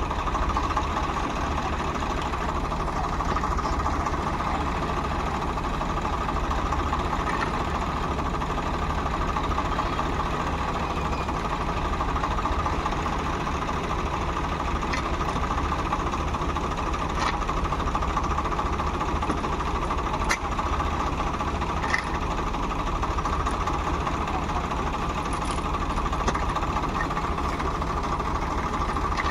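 Diesel tractor engine idling steadily with a knocking clatter, with a few sharp ticks now and then.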